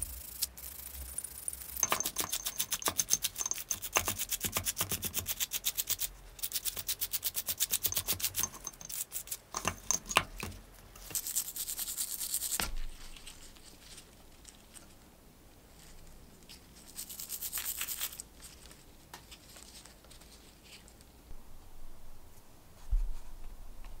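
Small wire brush scrubbing rust off a wet brass lighter part soaked in rust remover: fast back-and-forth strokes, several a second, in runs with short pauses between.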